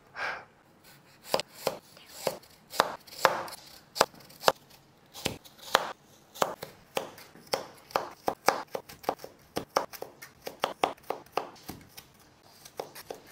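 Chef's knife chopping carrots on a plastic cutting board: sharp knocks of the blade striking the board, spaced out at first, then quickening to about three or four strokes a second from about halfway.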